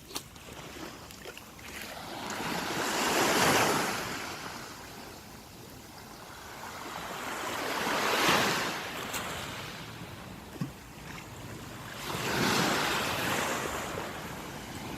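Sea waves breaking on the shore, the wash swelling and fading three times, about every four to five seconds, with a brief faint tap about two-thirds of the way through.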